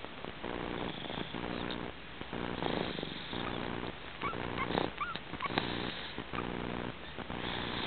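Snoring: a steady run of buzzing breaths, about one a second, with a few short high squeaks about halfway through.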